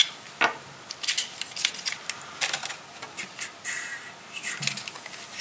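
A string of irregular plastic clicks and rattles from a plastic Space: 1999 stun gun replica being handled while two AAA batteries are fitted into its battery compartment.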